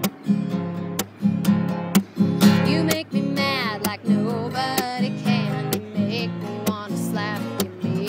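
Background music: a strummed acoustic guitar keeping a steady beat of about two strokes a second, with a melody line over it.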